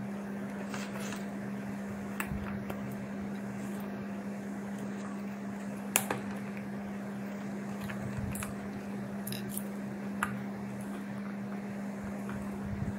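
Hands working at a cardboard toy box insert, with scattered clicks and rustles as plastic packaging fasteners are pulled out, the sharpest about six seconds in. A steady low hum runs underneath.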